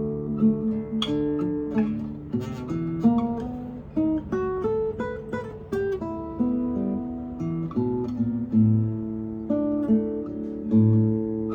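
Solo acoustic guitar being played, a plucked melody over bass notes with the notes ringing on and overlapping one another.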